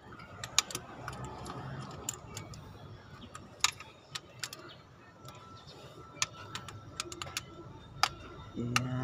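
Socket wrench on a long extension clinking against the bolts of a new water pump on an Isuzu 4JA1 diesel engine, as the bolts are run down to seat the pump evenly before final tightening. Irregular sharp metal clicks, a dozen or so, spaced unevenly.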